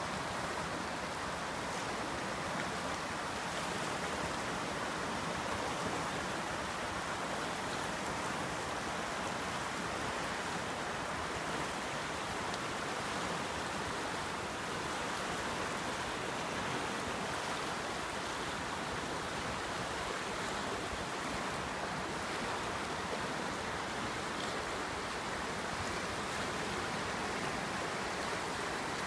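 River in flood, running about 16 feet high at some 3,600 cfs and rushing over rapids: a steady, unbroken rush of churning water.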